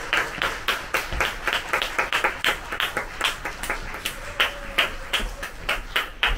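Concert audience applauding, with clear individual hand claps, several a second.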